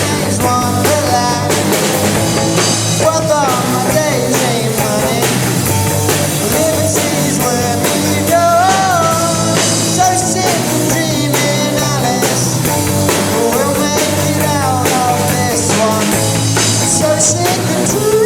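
Small rock band playing live: drum kit, bass and guitar, over which a melodic line slides and wavers in pitch, without words.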